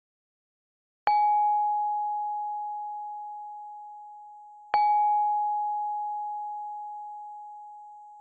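A bell-like ding struck twice, about three and a half seconds apart, each one ringing on with a slow fade.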